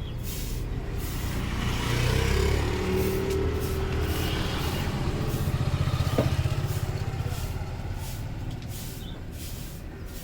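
Soft swishing of hands rubbing a head and hair in a massage, repeating about twice a second, over a steady low rumble. A short sharp tick comes about six seconds in.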